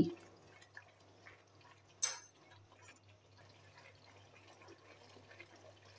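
Spatula stirring a wet semolina and sugar-syrup mixture in a steel kadhai: faint wet, squelchy stirring with small ticks, and one sharp knock of the spatula on the pan about two seconds in.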